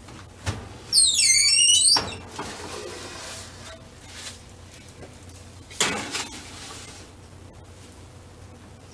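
A kitchen oven being opened and loaded: a loud, high metal-on-metal squeal lasting about a second, ending in a clunk, then another clunk about six seconds in as the baking sheet goes onto the oven rack.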